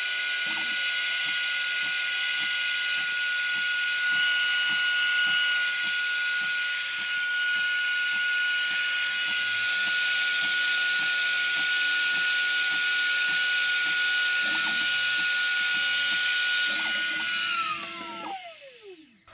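Shapeoko CNC's trim-router spindle running with a loud, steady high whine as the end mill cuts a pocket into a wooden board, with an uneven cutting rumble underneath. Near the end the router shuts off and its whine falls in pitch as it spins down.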